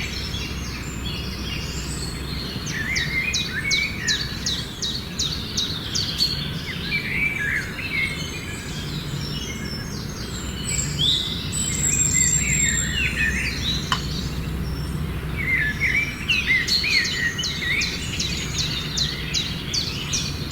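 Several birds chirping and calling, with quick rapid-fire trills in bursts, over a steady low background rumble.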